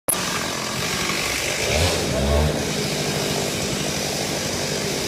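A small engine running steadily, with a brief low rumble about two seconds in.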